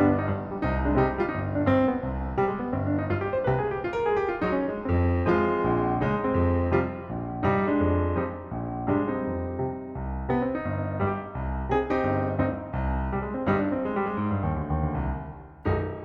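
Piano music: a lively tune of many quick struck notes over a bass line.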